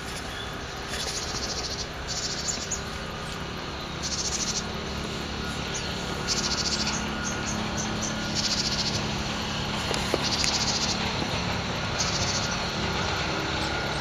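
Small birds of a mixed flock calling: short, high, rapid trills, each about half a second long, repeated every two seconds or so.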